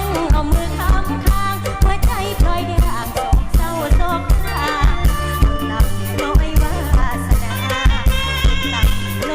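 Isan lam singing with a band: a voice bending through a melody over a steady drum-kit beat at about two beats a second.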